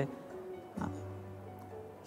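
Faint background music, with a soft knock a little under a second in.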